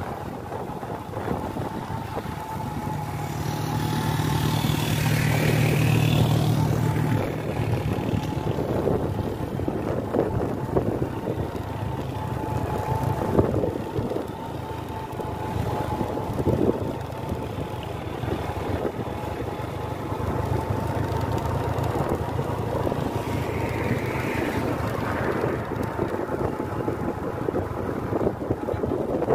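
Vehicle engine running while driving, with wind noise on the microphone. A steady high tone runs through it, and the engine drone swells louder about three seconds in and again around twenty seconds in.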